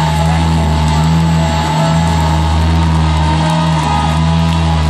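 Live rock band's amplified instruments sustaining a loud, steady low drone, with a few held higher tones above it, the low note dipping briefly about every two seconds.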